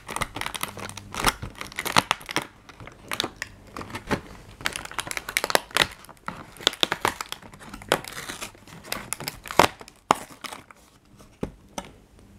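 Hands working the cardboard door of an advent calendar open: paperboard crinkling and tearing, with many short sharp crackles and taps.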